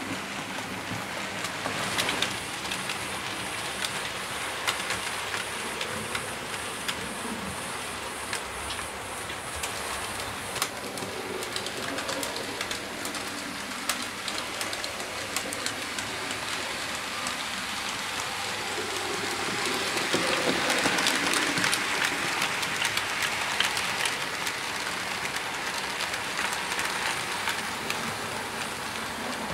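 Model goods train rolling along the track: a Hornby Jouef 141 TA steam locomotive model hauling freight wagons, running with a steady rolling rattle and many small clicks from the wheels on the rail joints. It grows louder for a few seconds past the middle as the train passes close by.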